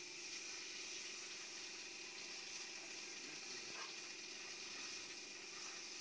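Pressure washer spraying water onto clay roof tiles: a steady hiss with a steady hum underneath.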